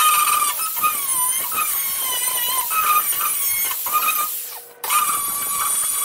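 Angle grinder grinding through spot welds in a steel car body panel: a high motor whine that sags in pitch each time the disc bites into the metal. It cuts out for a moment about five seconds in and spins up again.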